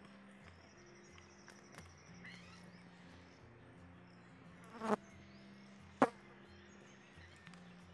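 Faint insect buzzing over soft background music, with a burst of crackles about five seconds in and one sharp crack a second later from the burning charcoal and wood heaped on the pot.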